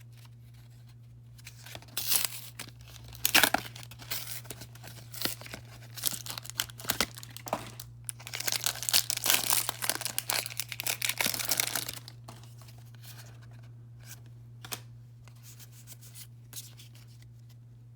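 Pokémon card blister pack packaging being torn open, with crinkling and tearing in bursts that are most intense in the middle and die down to a few light handling clicks near the end.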